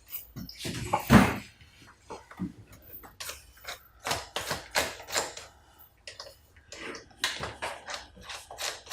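Irregular small clicks and taps of a screwdriver and handled plastic parts as screws are worked out of a laptop's plastic case, with a louder knock about a second in.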